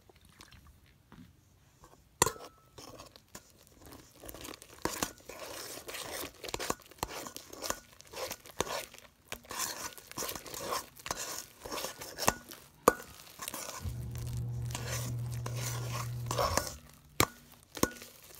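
Metal spoon stirring sticky, activated slime in a glass bowl: wet squelching and tearing as the slime pulls and folds, with a few sharp clinks of the spoon against the glass. A low steady hum comes in for a couple of seconds near the end.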